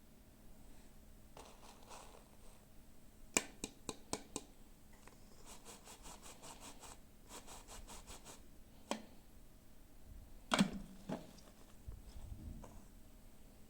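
Hands handling small plastic toy pieces and packaging: a few sharp clicks, then two stretches of fast crackling and scraping, and one louder click near the end.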